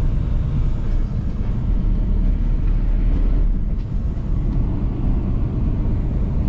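Lorry driving along, heard from inside the cab: a steady low rumble of engine and tyre noise.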